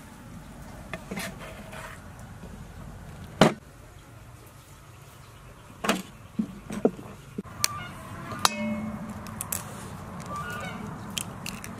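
Scattered sharp knocks and clinks of a cleaver against a steel bowl and wooden chopping block, the loudest about three and a half seconds in, with intermittent animal calls in the second half.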